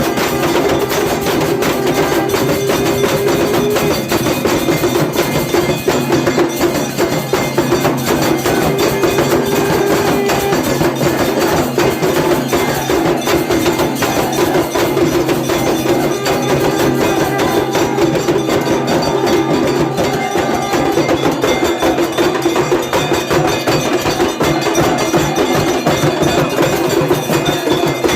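Temple aarti being played: bells and percussion struck rapidly and without a break, with a steady ringing layer underneath, loud and continuous.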